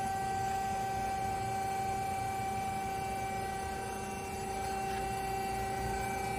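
A CNC press brake's hydraulic pump running, with a steady hum and a higher whine that stay unchanged throughout.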